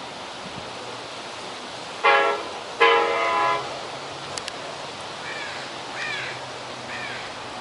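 Locomotive air horn sounding a short blast and then a longer one, a chord of several pitches, about two to three and a half seconds in. Three short chirping calls follow over a steady hiss of rain.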